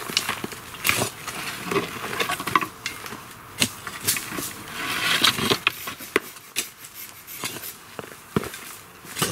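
A short-handled shovel digging into sandy soil, its blade scraping and striking the ground with irregular sharp knocks, and shovelfuls of earth thrown into a plastic bucket, with a longer scraping rush about five seconds in.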